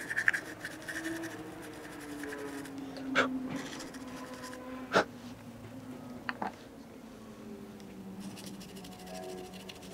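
A toothbrush scrubbing old dust out of the opened plastic housing of a yacht's circuit breaker: scratchy bristle strokes at the start and again near the end, with a few sharp clicks in between, the loudest about halfway. The repairer takes this dust for the main reason the breakers fail.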